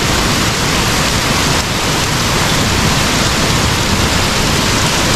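Torrential rain pouring down hard and steadily, a loud, even hiss of rain.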